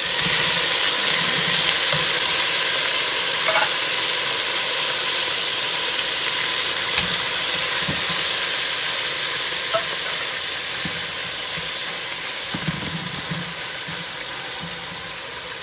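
Canned tuna and its oil sizzling as they hit hot oil with sautéing onions and garlic in a metal pot. The sizzle is loudest at the start and slowly dies down, with occasional soft knocks of a wooden spatula stirring.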